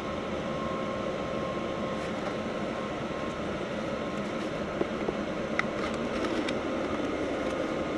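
Diesel cab air heater (Webasto-type) running, its fan blowing air in a steady whir with a faint hum. A few light clicks and crinkles of the corrugated aluminium duct being handled about five to six seconds in.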